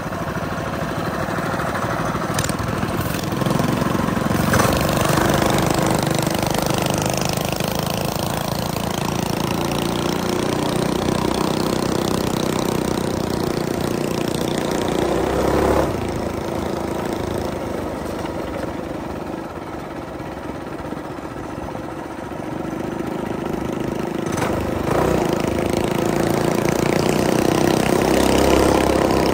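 Mini bike's small single-cylinder engine running under way, speeding up about four seconds in, easing off through the middle and picking up again near the end.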